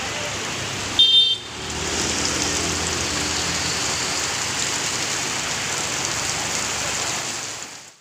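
Heavy rain pouring onto a wet road, a steady hiss, with motorcycles passing through the downpour. A short, loud high-pitched sound cuts in about a second in, and the sound fades out near the end.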